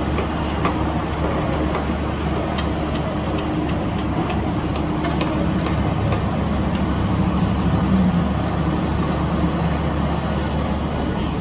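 Heavy construction machinery engine running steadily with a low hum and rumble, with a few faint clicks and clanks scattered through.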